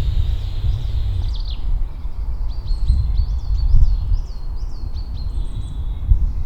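Wind buffeting the microphone with a steady low rumble, while small birds chirp over it. From about a second in there is a quick run of short, high, falling chirp notes.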